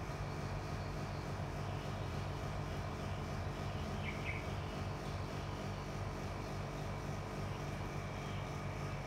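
Steady low drone of a distant engine, unchanging throughout, with a brief high chirp about four seconds in.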